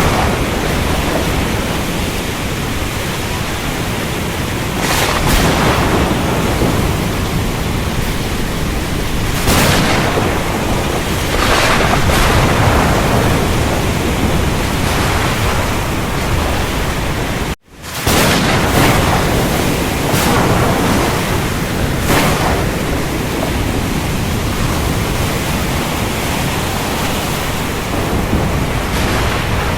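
Strong storm wind buffeting the microphone: a loud, continuous rush that surges in gusts every few seconds. It drops out for an instant about two-thirds of the way through, then resumes.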